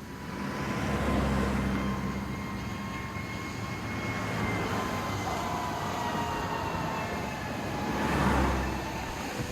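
Ocean surf washing in, a steady rushing noise that swells about a second in and again near the end as waves break.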